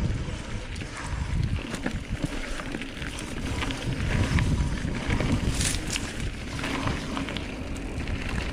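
Mountain bike riding down a dirt forest trail: wind buffeting the microphone as a low rumble, tyres rolling over dirt and roots, and the bike rattling with scattered clicks and knocks, with a brief scraping hiss a little past halfway.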